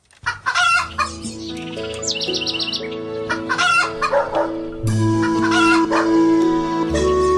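Rooster crowing several times over background music with long held chords, with a quick run of high bird chirps about two seconds in.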